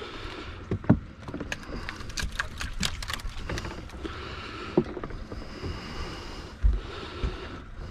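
Water lapping against a small fibreglass boat, with scattered light clicks and knocks as pliers work the hook out of a barracuda lying on the deck.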